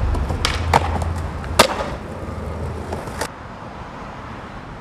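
Skateboard riding along a granite ledge: a low rolling rumble of wheels and trucks, with several sharp clacks of the board, the loudest about a second and a half in. The rolling stops about three seconds in.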